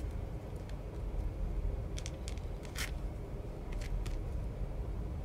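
A wooden barbecue skewer scratching and clicking in short strokes on modelling clay and a paper template, a handful of brief scratches about two to four seconds in. A steady low rumble runs underneath.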